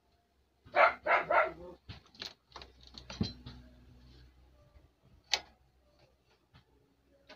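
A dog barking three times in quick succession about a second in, followed by a few sharp clicks.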